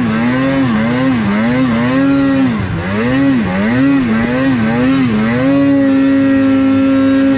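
Polaris mountain snowmobile's two-stroke engine being revved in quick throttle blips, rising and falling about twice a second, then held at a steady high rev for about two seconds before the throttle is let off at the end.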